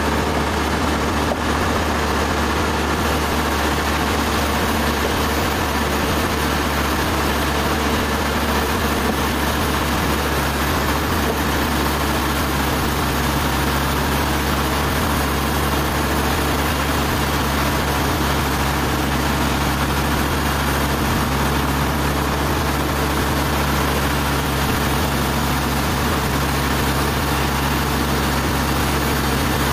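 Sawmill machinery running steadily: a deep engine hum under a dense, even whir, with no breaks or changes.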